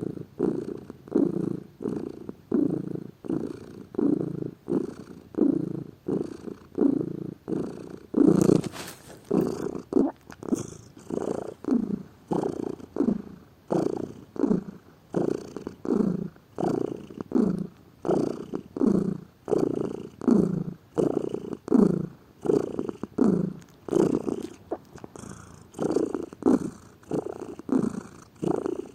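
Domestic cat purring close to the microphone, swelling and fading in a steady rhythm of about two pulses a second as it breathes in and out. A brief rustle comes about eight seconds in.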